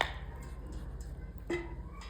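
Two light clinks of small kitchen utensils being handled, one at the start and one about a second and a half in that rings briefly, over a steady low hum.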